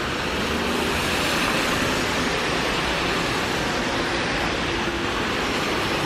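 Steady rain falling on wet pavement and puddles, with cars driving by on the wet road, their tyres hissing.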